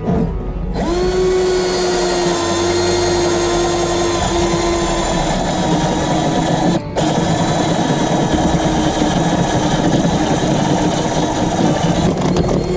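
Cordless drill boring an entrance hole in a wooden birdhouse wall with a spade bit. The motor starts about a second in, whines steadily under load, and stops briefly about seven seconds in before running on.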